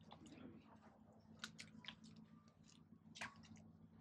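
Near silence, with a low steady hum and a few faint short clicks and taps.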